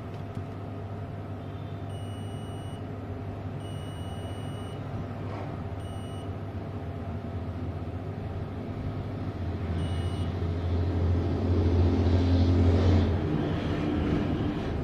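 A steady low rumble that grows louder about ten seconds in, with four short high-pitched beeps spaced about two seconds apart.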